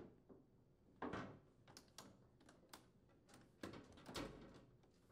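Faint handling noises of a washing machine's front panel being fitted onto the frame: soft clicks and rubbing, in two short bursts about a second in and again after three and a half seconds.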